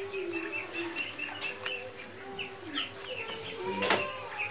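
Chickens clucking, with many short high chirps repeating throughout and a sharp click near the end.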